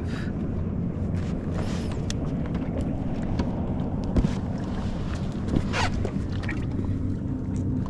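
A boat motor running steadily with a low, even hum, with a couple of faint knocks about four and six seconds in.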